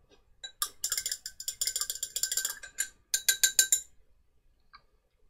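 A paintbrush clinking rapidly against a hard pot or palette, a quick run of bright, ringing clicks. It comes in two bursts, a longer one starting about half a second in and a shorter, louder one at about three seconds, as the brush is worked between colours.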